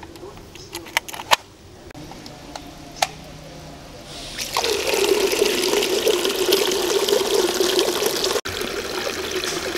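A few sharp clicks about one to three seconds in, as a plug is pushed into a power strip. About four and a half seconds in, water starts gushing out of a PVC elbow pipe into a concrete filter chamber, splashing and bubbling steadily as the aquarium's water pump pushes the flow.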